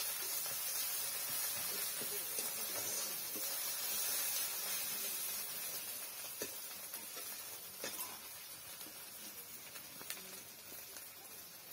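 Chopped onions and turmeric sizzling in hot mustard oil in a metal kadai, a steady hiss that slowly fades toward the end. A few sharp clicks come through in the second half.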